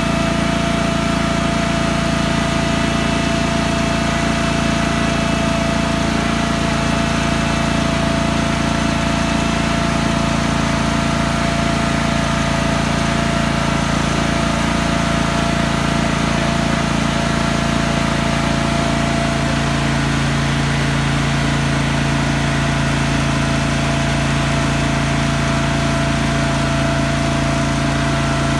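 Engine of a tracked Toro compact utility loader running steadily at idle, a constant hum with a slight change in its note about two-thirds of the way through.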